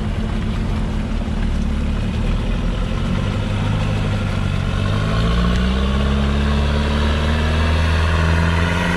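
Shatun all-terrain vehicle engine running under load in peat slurry. Its pitch rises between about three and six seconds in, and it gets louder, then holds steady.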